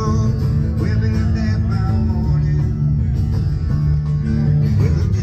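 A live band playing: guitars and singing over a steady bass line.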